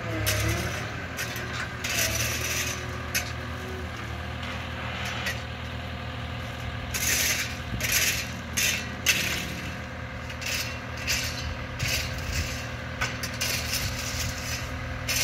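Shovels scraping and crunching into loose landscape gravel in a series of short strokes, busiest about halfway through. Underneath runs the steady low hum of a skid-steer loader's engine.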